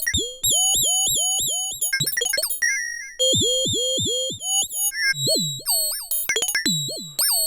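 Modular synthesizer sine-wave oscillators playing a sequenced pattern of short, metallic, bird-like chirps. Each note drops quickly in pitch, and the notes come at an uneven rhythm that speeds up and slows down.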